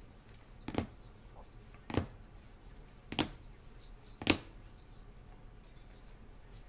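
Hard plastic card holders clacking together as a stack of cased trading cards is flipped through one card at a time: four sharp clacks about a second apart, the last the loudest.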